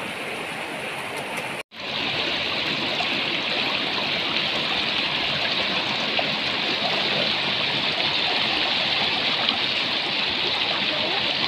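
Steady rushing of a rocky mountain river. A momentary break in the sound comes a little under two seconds in, after which the rush is louder and brighter.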